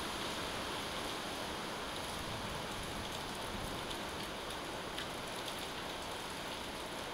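Steady rain falling during a thunderstorm, an even hiss with a few sharper drop ticks.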